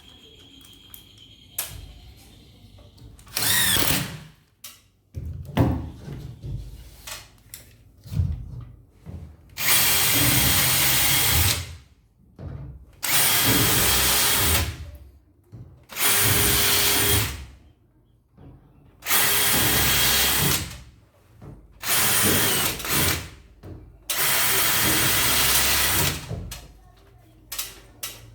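Power drill driving screws into wood, about seven runs of one to two seconds each with short pauses between, as screws are set one after another. Light knocks and handling of the panel fill the gaps.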